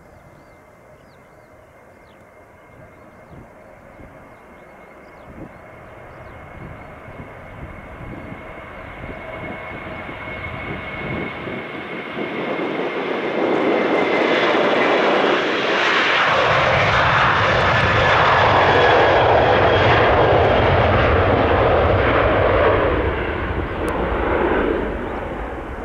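Boeing 737-800's two CFM56-7B turbofans at takeoff thrust during the takeoff roll: a steady whine that grows into a loud rumble as the jet passes, easing slightly near the end as it rotates and lifts off.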